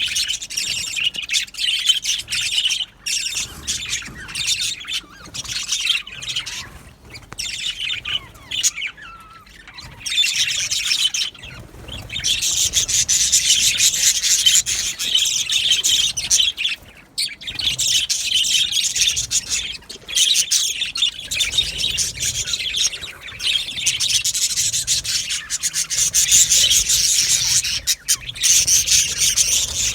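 Flock of budgerigars chattering and warbling together in a continuous busy stream of chirps and squeaks, fuller and louder from about twelve seconds in.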